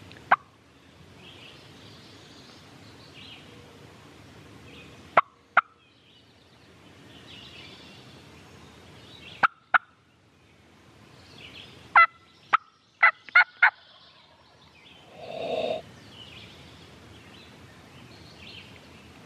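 A hunter's mouth turkey call giving sharp hen clucks, singly and in pairs, then a quick run of five cutts. About fifteen seconds in a wild turkey gobbler answers once with a short gobble.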